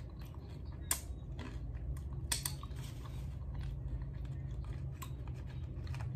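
Close-up chewing of nachos, soft mouth sounds broken by short crunches and a few sharp clicks, the clearest about a second in and again just past two seconds, over a steady low hum.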